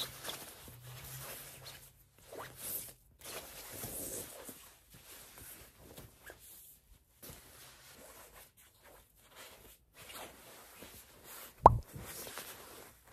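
Rustling and handling of a padded fabric laptop sleeve as it is opened and moved around, in soft intermittent spells, with one sharp tap near the end, the loudest sound.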